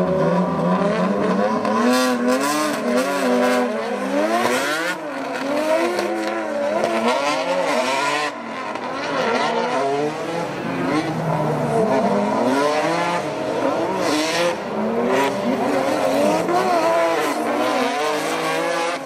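Drift cars' engines revving hard and rising and falling in pitch again and again as the throttle is worked through the drift, with tyre screech in places.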